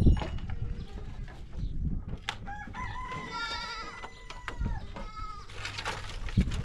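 A rooster crowing once, a single long wavering call starting about two and a half seconds in, over low rustling and a few short knocks.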